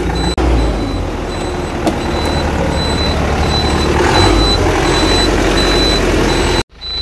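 Ashok Leyland bus diesel engine running, with the dashboard's low-air-pressure warning beeping over and over in short high beeps, because the brake air pressure is low while air leaks from an opened air pipe. The sound cuts out suddenly near the end.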